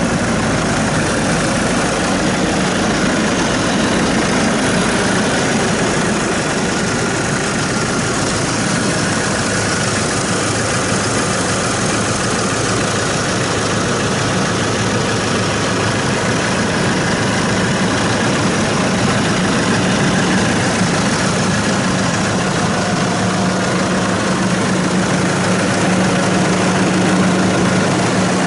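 Case 115C tractor's diesel engine idling steadily, heard close up at the open engine bay, with a constant low hum.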